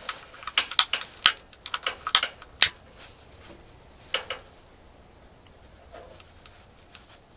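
Handheld lighter being clicked repeatedly to light fire starter in a stove: a quick run of sharp clicks over the first few seconds, then two more about four seconds in.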